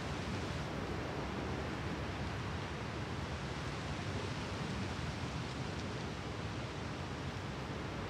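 Sea washing steadily on the shore: an even, unbroken hiss with no separate wave breaks standing out.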